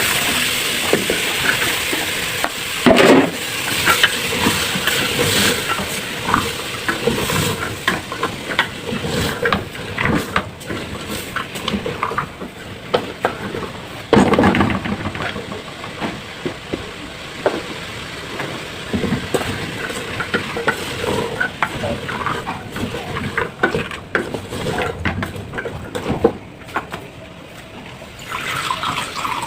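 Soup ingredients sizzling in a pot while a spoon stirs and knocks against it, with repeated clinks of metal utensils; the sizzle is strongest in the first half.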